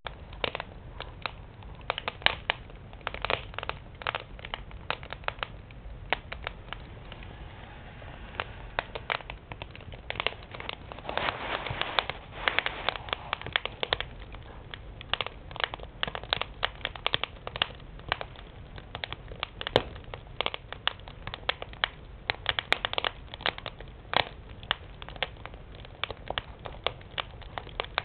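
Wood fire burning in a firebox, the boards and logs crackling with irregular sharp pops, the crackling busier for a few seconds about halfway through.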